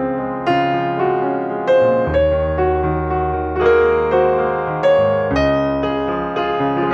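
Background piano music: a slow, gentle melody, with a new chord struck about every second and each left to fade.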